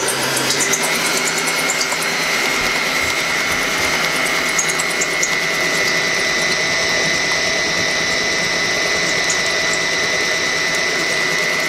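Bosch stand mixer running, its whisk beating eggs and sugar in the steel bowl. The motor whine rises over the first second and then holds steady.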